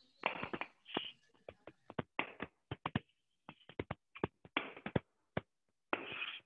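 Chalk drawing on a chalkboard: an irregular run of quick taps and short scratchy strokes as lines are drawn, with a few longer scrapes near the end.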